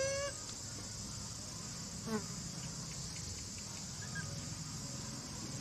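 Steady, high-pitched insect chorus, with two short squeaky calls from a baby macaque: one slightly rising right at the start and a falling one about two seconds in.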